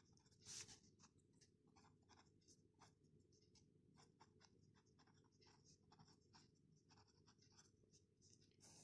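Faint scratching of a pen on paper as block capital letters are written: a quick run of short strokes, several a second, with the firmest stroke about half a second in.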